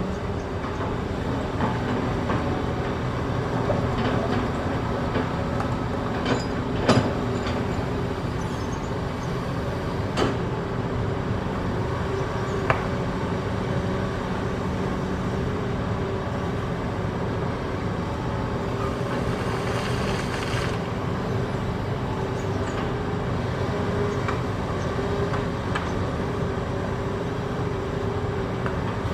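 Hitachi ZX210 hydraulic excavator working: its diesel engine runs steadily under load, with a few sharp knocks of the steel bucket striking hard rock, the loudest about seven seconds in.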